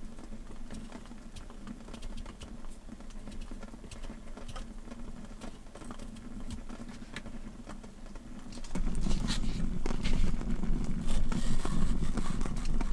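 Kitchen knife working a piece of white vegetable by hand: small scraping and tapping clicks. About nine seconds in it grows louder, with sharper knife taps on a cutting board over a low steady rumble.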